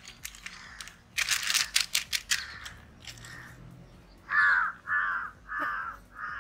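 A crow cawing repeatedly, about four caws in a row at an even pace, starting around four seconds in. Before that, about a second in, a quick run of sharp crackling clicks.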